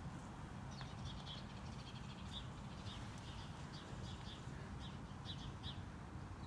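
A small bird chirping, short high notes repeated irregularly, faint over a steady low background rumble.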